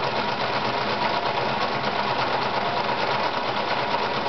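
Victoria Super Deluxe 118F electric sewing machine running steadily at speed, a fast even clatter of needle strokes over a steady motor hum, as it sews a three-step elastic zigzag stitch.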